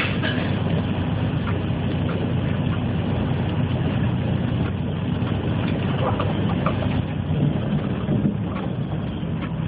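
City bus engine running steadily as the bus rolls down a winding hill road, heard from on board, with a few brief clicks and rattles over the low drone.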